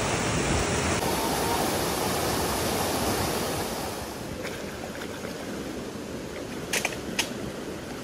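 Mountain stream water rushing steadily over a rocky cascade, dropping to a softer running-water sound about halfway through. Two brief sharp sounds come close together near the end.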